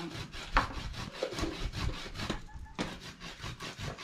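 Kitchen knife working against wood in a quick, even series of rasping strokes, with one sharper click about half a second in: food being cut by hand.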